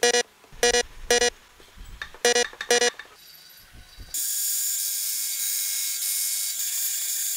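Two pairs of short electronic beeps in the first three seconds. Then, from about four seconds in, a bandsaw cuts through wood with a steady high hiss.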